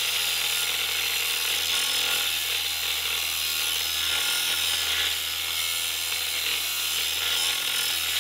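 Cordless angle grinder cutting into a steel rail-section beam: a steady, unbroken grind that starts abruptly, dipping slightly about five seconds in.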